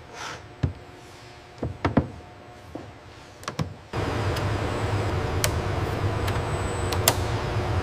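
Scattered sharp knocks and taps as a large wood-veneer panel is handled. About halfway through, a steady low machine hum with hiss sets in, with a couple of clicks over it.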